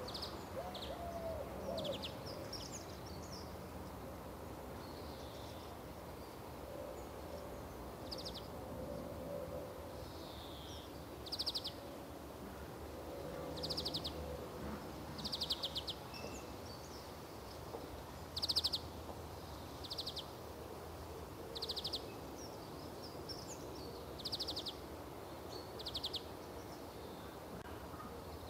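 Recorded birdsong filler played while the live broadcast's sound is cut: short trilled chirps, one every couple of seconds, over a steady hiss.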